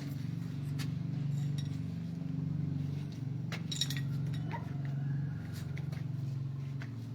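Light clinks and knocks of small hard objects, the sharpest about halfway through, over a steady low hum.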